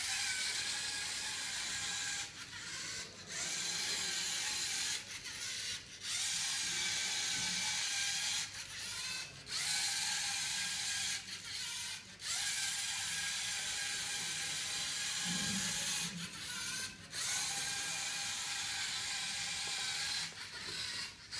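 Small LEGO Mindstorms robot's electric drive motors whirring through their gear trains with a steady high whine as it drives. It cuts out for a moment every few seconds, often twice in quick succession.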